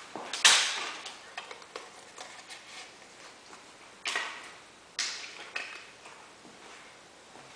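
A deck of playing cards snapping and riffling in the hands during card flourishes: three sharp bursts that each trail off, the loudest about half a second in and the others about four and five seconds in, with light card clicks between.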